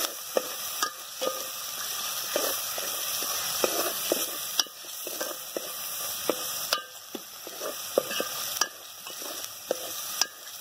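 Onion and ground masala sizzling in hot oil in a metal pot while a metal spoon scrapes and clinks around the pot as it is stirred, the masala being sautéed.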